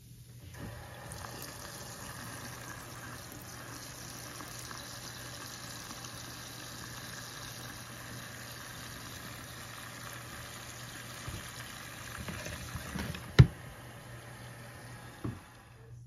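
Water running steadily into a mini portable washing machine's tub from the faucet hookup, filling it for the rinse, over a low steady hum. A single sharp knock near the end is the loudest sound.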